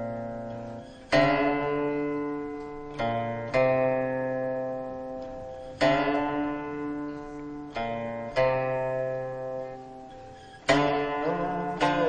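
Background music on a plucked string instrument: slow single notes and pairs, each struck sharply and left to ring and die away, a new one every second or two.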